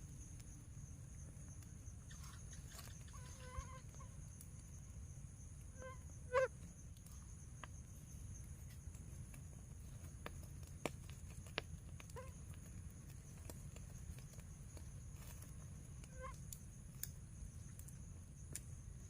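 A few short, faint, honk-like animal calls a few seconds apart, the loudest about six seconds in, over a steady high-pitched drone.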